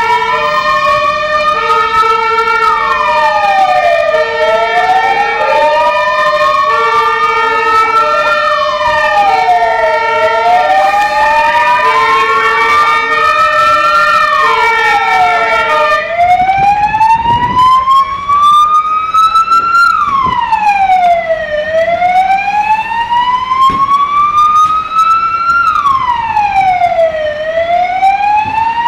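Two fire engine sirens sounding at once. One wails, rising slowly and dropping quickly about every six seconds. The other gives quick repeating stepped tones that stop about halfway through, leaving the wail alone.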